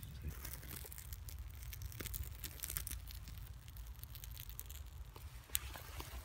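Burning birch bark tinder crackling in a small stick fire as it catches, with irregular small sharp snaps and one louder pop near the end.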